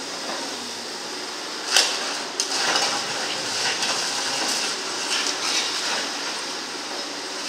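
Caterpillar hydraulic excavator with a concrete crusher attachment raking and breaking up concrete demolition rubble: steady machine noise with broken concrete clattering and knocking, a sharp knock about two seconds in and then a run of clatter for the next few seconds.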